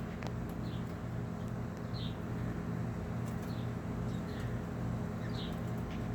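Small aviary parrots giving short, high chirps, roughly one every half second to second, over a steady low hum.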